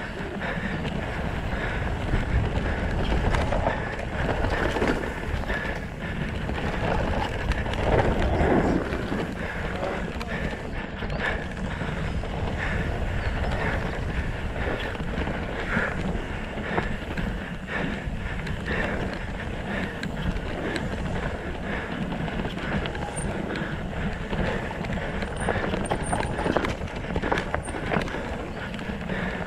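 Mountain bike ridden fast down a dirt singletrack: tyres rumbling over dirt and roots, the bike's chain and parts rattling with irregular knocks, and wind buffeting the camera microphone.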